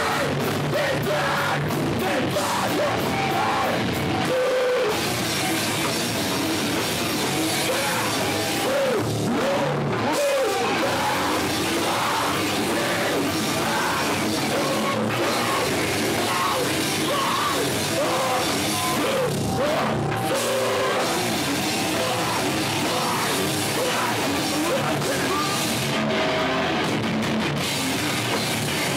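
Metalcore band playing live at a steady loud level: electric guitars, bass guitar and drum kit.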